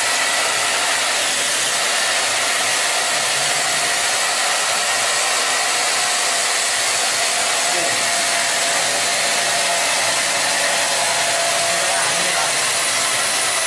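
Steady, loud rushing of water through the cave, an unbroken hiss with no pause.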